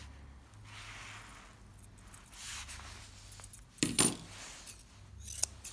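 A metal grooming comb clatters down onto a metal diamond-plate grooming table about four seconds in: one sharp metallic clink with a brief ring. Soft rustling of hands and fur comes before it, and a few light clicks near the end.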